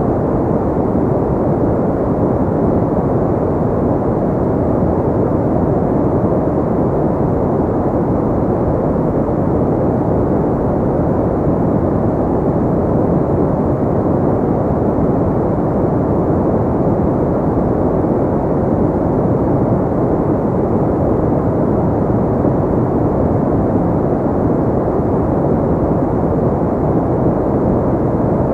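Steady white-noise sleep track: an even, muffled rushing hiss that is deep rather than bright, with little treble and no change in level.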